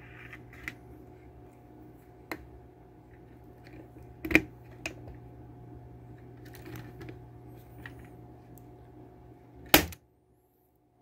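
Hand pop rivet gun squeezed several times, its jaws clicking as they grip and pull the mandrel of a 5/32 steel pop rivet, ending near the end in one loud sharp snap as the mandrel breaks off and the rivet is set.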